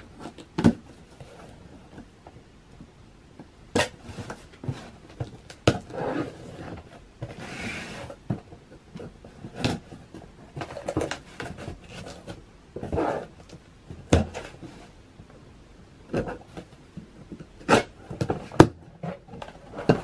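Box cutter slitting the packing tape along a cardboard box seam, with sharp taps and knocks of hands and blade on the cardboard and a longer scraping hiss about eight seconds in. Near the end the cardboard flaps are pulled open.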